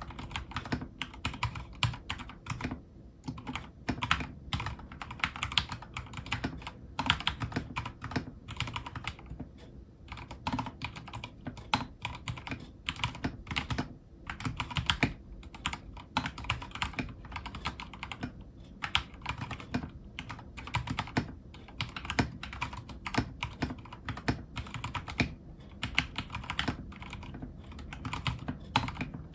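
Typing on a Vortexgear Cypher 65 mechanical keyboard in stock form, with Cherry MX Silver linear switches and stock PBT keycaps: a rapid, continuous run of keystrokes with only brief lulls.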